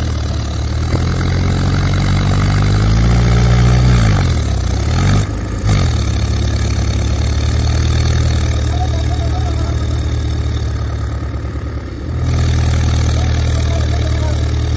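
Mahindra tractor's diesel engine revving as the tractor, sunk in mud, tries to drive out under a tow. The revs climb over the first few seconds and drop off about five seconds in, then the engine runs steadily, with a brief dip near twelve seconds.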